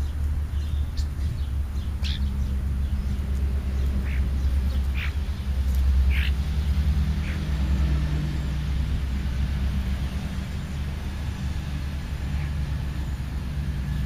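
Short, sharp bird calls, about half a dozen in the first half, over a steady low rumble that swells briefly about six seconds in.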